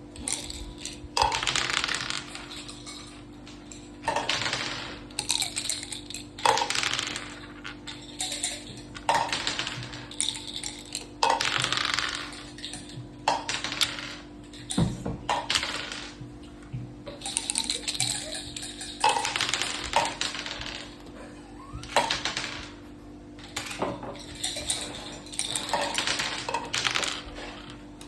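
Dice and wooden checkers on a mak saka (Thai backgammon) board: short bursts of rattling and clacking about every two seconds, with sharp clicks as pieces land.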